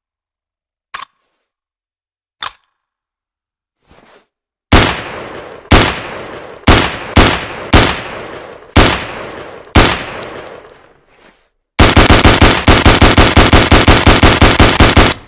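Ruger 10/22 rifle firing. Two light clicks come first, then seven single shots roughly a second apart, each with an echoing tail. Near the end comes a rapid string of shots, about eight a second, for about three and a half seconds.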